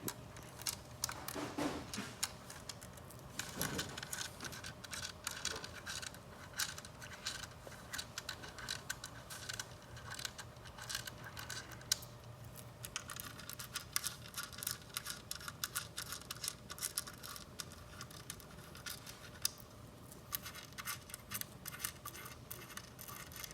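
Screws being taken out of a replacement power supply with a hand screwdriver: a long run of small metallic clicks, scratches and rattles, busiest in two stretches.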